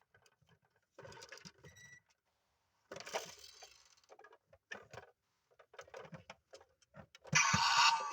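Small clicks, clinks and rattles, broken by short pauses, as a die-cast metal miniature truck is handled. Near the end a louder, fuller burst of sound comes in.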